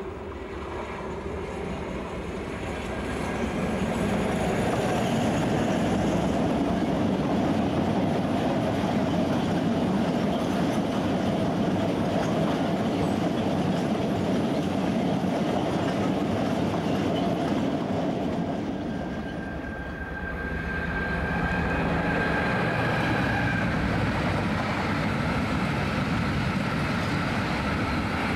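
Class 56 diesel-electric freight locomotive (Ruston-Paxman V16) approaching and passing, its sound building over the first few seconds, followed by a long rake of coal hopper wagons rolling past with a steady rumble and wheel clatter. About 20 seconds in the sound changes to a second freight train of open box wagons rolling by, with a thin, high wheel whine for a few seconds.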